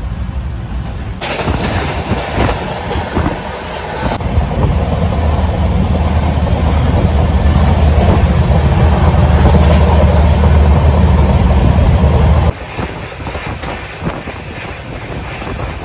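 Passenger train running along the track, heard inside a coach by an open barred window: a loud, steady rumble of wheels on rails that drops suddenly near the end.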